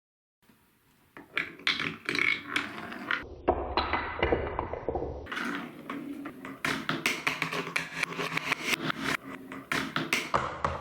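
Marbles rolling down a plastic TrixTrack marble run, with many quick clicks and clacks as they hit track pieces and each other, and a low rolling rumble for a second or two in the middle.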